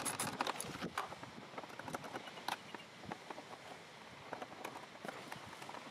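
Faint, scattered clicks and light taps of a ratchet and small Torx screws being handled while a motorcycle's plastic fairing panel is unscrewed, a few irregular knocks several seconds apart.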